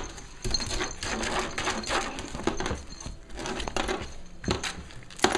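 Cavalier King Charles spaniel puppies scuffling and wrestling over plush toys: a busy run of rustles, small clicks and knocks.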